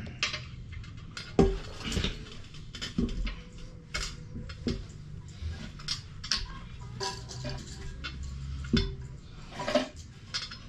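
Irregular clinks and knocks of hard toilet parts and mounting hardware being handled and fitted during installation, a few of them ringing briefly.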